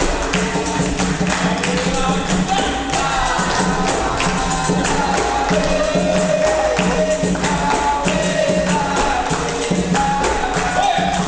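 Capoeira roda music: voices singing over a pandeiro and other percussion, with a continuous rhythmic beat.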